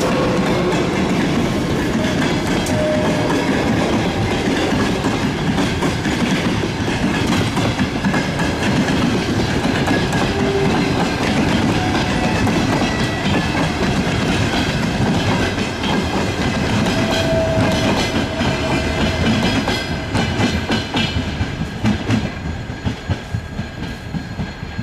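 Russian Railways passenger coaches of an express train rolling past at close range, the wheels clicking over the track. Near the end the sound fades as the train moves away.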